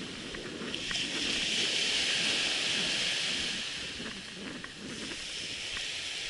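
Surf washing up the beach: a hiss that swells for a few seconds and eases off, with wind buffeting the microphone.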